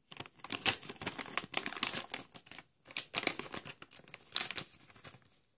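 Shiny plastic blind bag crinkling in irregular crackles as it is handled and opened by hand.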